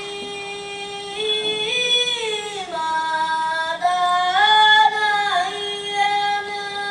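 Paiwan children singing a traditional song, long held notes that glide up and down from one pitch to the next.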